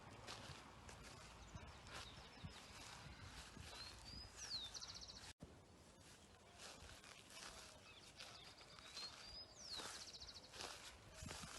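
Faint footsteps and rustling of leafy shrubs being brushed through. A songbird calls twice, each time a short rising phrase, a falling note and a quick trill.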